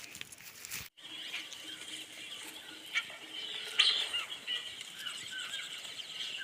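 Small birds squeaking and chirping over a steady high hiss, with a couple of sharp clicks in the middle. The sound cuts out briefly about a second in.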